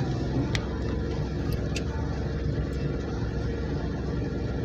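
Steady engine and road noise of a car heard from inside, with a few faint clicks.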